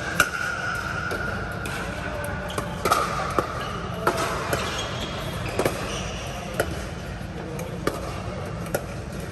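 Pickleball rally: a string of sharp pocks from paddles striking the plastic ball and the ball bouncing on the court, about one a second at an uneven pace, over steady low background noise.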